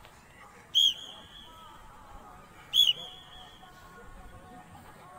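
Two blasts on a coach's whistle, about two seconds apart, each a sharp loud start that settles into a shorter held shrill tone, calling the pace of a group's sit-ups.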